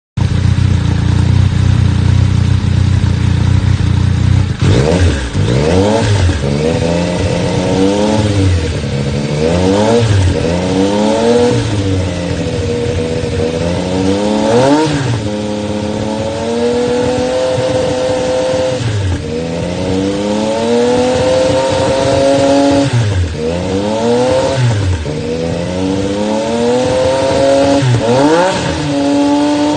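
Yamaha Tracer motorcycle engine breathing through an aftermarket 400 mm Akrapovič exhaust: it idles steadily for about four seconds, then is revved over and over, with quick blips that rise and fall in pitch alternating with a few longer held revs.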